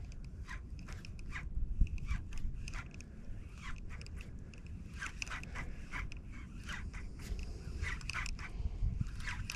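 Faint, irregular clicks and ticks from a spinning reel and rod as a lure is worked back after a cast, over a steady low rumble.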